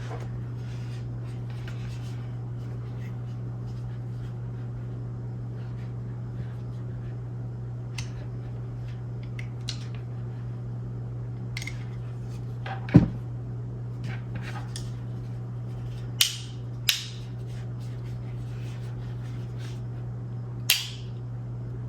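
Camera packaging and parts being handled during an unboxing, over a steady low hum. There are scattered small clicks and taps, a knock about 13 seconds in, and three sharp snaps later on.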